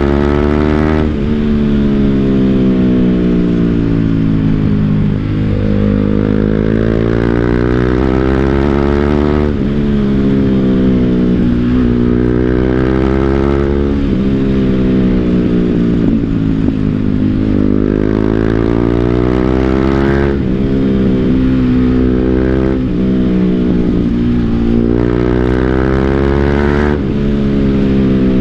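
BMW G 310 GS single-cylinder engine through an Akrapovic full-system exhaust, heard on board while riding. The engine pitch climbs and falls repeatedly, with several abrupt changes in pitch as the rider accelerates, shifts and eases off.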